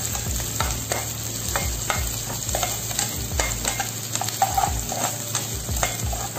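Chopped onion, garlic and ginger sizzling in hot oil in a frying pan, with the repeated scrapes and clicks of a slotted spoon stirring against the pan.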